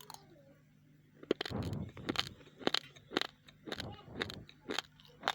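Raw, uncooked rice grains being chewed close to the microphone: sharp crunches about twice a second, starting about a second in, with duller chewing sounds between them.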